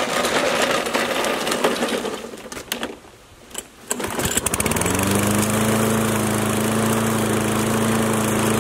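Toro Recycler 22 walk-behind mower's small gas engine running, then dropping away about two seconds in. Just after four seconds it is pull-started, catches, revs up over about a second and runs at a steady speed.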